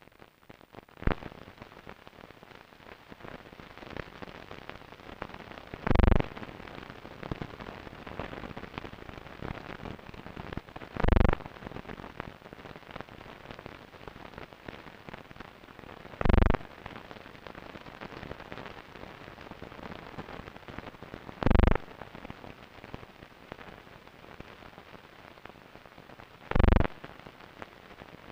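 Crackling, hissing surface noise of an old 16mm film soundtrack, broken by five short, loud, low thumps evenly spaced about five seconds apart.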